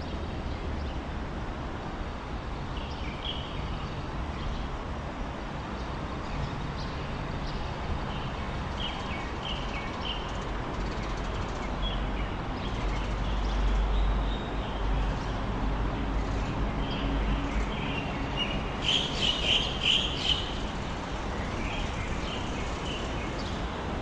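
Steady low rumble of traffic on the highway viaducts overhead, swelling for a few seconds about halfway through, with small birds chirping on and off and a brief flurry of chirps near the end.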